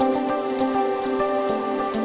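Background music: held chords with light, quick ticking high up.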